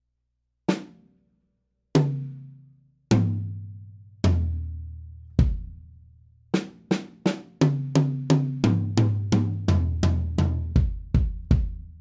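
Fibes drum kit played solo: single strokes on the drums, each left to ring out and each lower in pitch than the last, then from about six and a half seconds in a quicker pattern of strokes around the toms and bass drum. It is heard through a Yamaha EAD10 with AKG clip-on tom mics and Sterling overheads.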